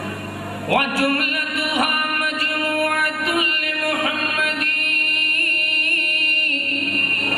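A man's voice chanting melodically in Arabic/Urdu religious style, drawing out long, ornamented held notes; a new phrase comes in about a second in.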